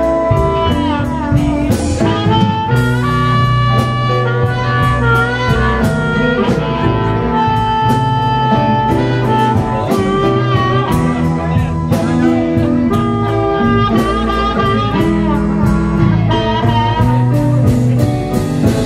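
Blues band playing, led by an amplified harmonica played into a cupped microphone: long held notes and bent notes over bass and a steady drum beat.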